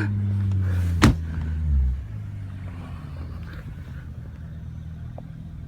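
Audi quattro car's engine held at high revs for about two seconds, with a sharp click about a second in, then dropping back to a low, steady rumble.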